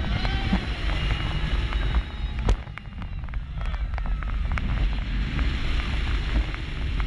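Wind buffeting the microphone and the low rumble of an inverted steel roller coaster train racing along its track, with riders' high voices rising and falling at times. One sharp knock comes about two and a half seconds in.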